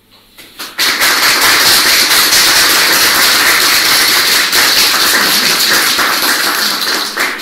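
Audience applauding: a few scattered claps, then dense clapping from about a second in that dies away near the end.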